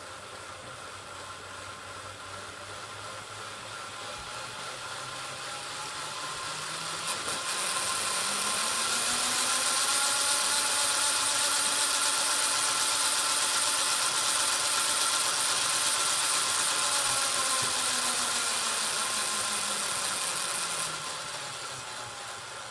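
Electric motor and gears of a model Southern Railway Q1 locomotive running on a rolling road, its wheels cleaned and tender pickups renewed. The whine rises in pitch and loudness as it speeds up over the first half, holds steady, then falls away as it slows near the end.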